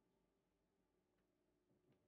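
Near silence: a faint steady hum, with a couple of faint ticks in the second half.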